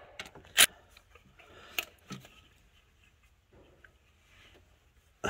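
A few sharp clicks and knocks of tools and parts being handled in a car's engine bay, the loudest about half a second in, with quiet handling noise between.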